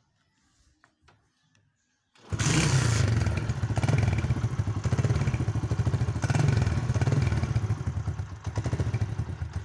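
Near silence for about two seconds, then a Honda CD 70's single-cylinder four-stroke engine comes in abruptly and runs loudly through an aftermarket silencer, with a rapid exhaust beat.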